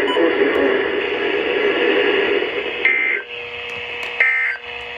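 Weather radio receiver hissing with static, then two short screeching digital data bursts about a second apart: the Emergency Alert System end-of-message code that closes a NOAA Weather Radio warning.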